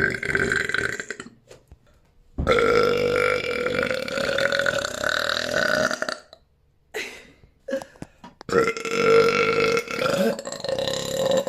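A person burping: long, drawn-out belches with a steady pitch. One ends about a second in, a second lasts nearly four seconds, a short one follows, and a fourth long one starts near the end and carries on.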